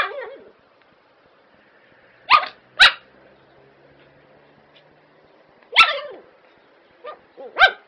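A drugged dog giving single barks spaced a few seconds apart: two close together, a lone bark a few seconds later, then a faint short one and a louder bark near the end.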